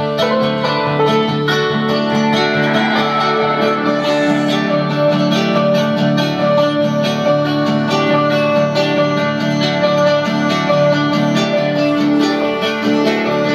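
Guitar music played from an MP3 player through a homemade 15 W class A transistor amplifier, heard from its loudspeaker box. It plays steadily and cleanly, with the amplifier's supply at about 30 volts.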